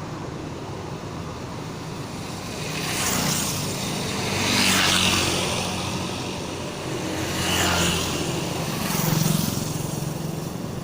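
Motor vehicles passing close by one after another, each swelling and fading, over a steady low traffic rumble.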